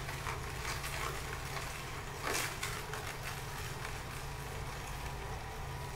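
Omega VRT330 low-speed vertical juicer running: a steady low motor hum, with a few faint crackles as produce is crushed by the auger, the clearest a little over two seconds in.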